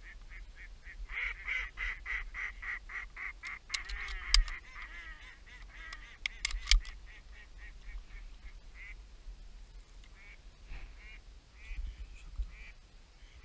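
Mallard hen quacking in a long rapid series, about three quacks a second, loudest at first and trailing off, with two sharp knocks partway through.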